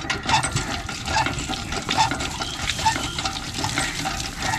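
Hand pump being worked by its lever handle, water splashing from the spout onto hands and the ground, with a short sound from the pump mechanism on each stroke, about once a second.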